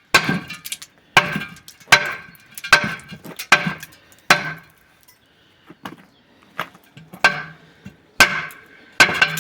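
Hammer blows on a steel water-main pipe, about nine strikes roughly one every second with a pause midway, each leaving a short ringing tone: knocking the ceramic lining out of the pipe.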